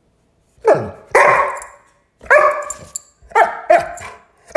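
Dog barking in quick, sharp barks, about six of them, starting about half a second in.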